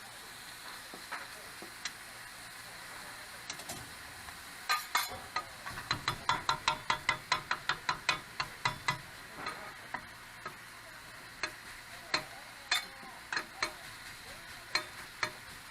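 Metal cooking utensils clacking against a grill plate. A quick run of sharp strikes, about four a second, comes from about five seconds in and lasts roughly four seconds. A few scattered clicks follow, over a faint steady sizzle of meat grilling.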